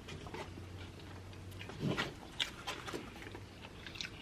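People chewing and smacking their lips while eating sub sandwiches, with scattered wet clicks and a louder mouth sound about two seconds in.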